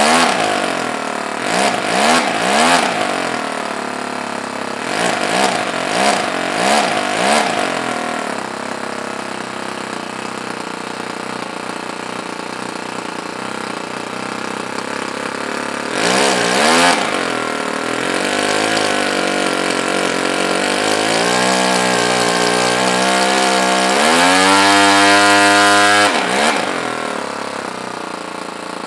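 Toyan FS-L200 inline two-cylinder four-stroke glow model engine running, its revs blipped up and down several times. Later the revs climb in steps and hold high for a couple of seconds near the end before dropping back.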